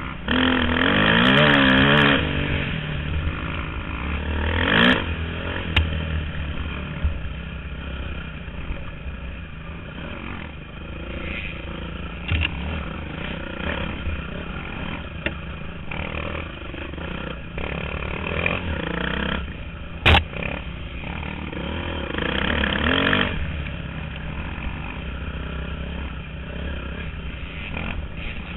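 Dirt bike engine revving up and easing off again and again as it rides a rough trail, with the hardest revs near the start and again late on. One sharp knock about twenty seconds in.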